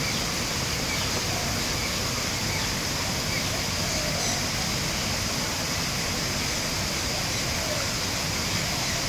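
Steady rushing of a small ornamental waterfall, with faint short bird chirps now and then.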